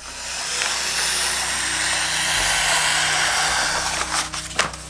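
Wrapping paper being pulled off its roll and spread out, a steady loud rustle for about four seconds, then a few sharp crackles of the paper near the end.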